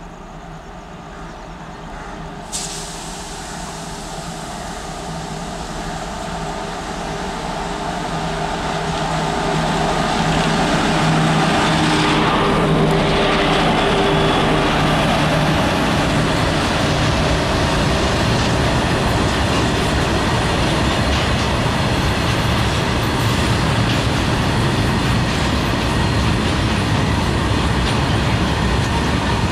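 Electric freight locomotive approaching and passing close by, its hum growing louder and dipping in pitch as it goes past about halfway through. It is followed by the steady rumble and clatter of a long string of freight wagons rolling by.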